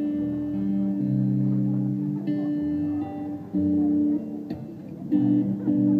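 Guitar chords strummed one at a time and left to ring, a new chord about every one to one and a half seconds, like a player warming up or trying out chords.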